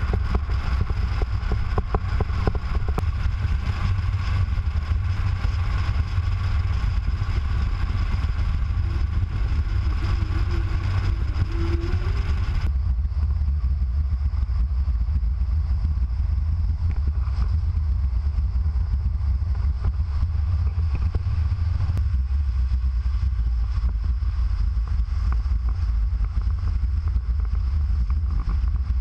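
Steady low rumble of road and wind noise from a camera mounted low beside the wheel of a moving Mini Cooper S, with tyres on asphalt and wind buffeting the microphone. The sound turns abruptly duller about halfway through and shifts again later.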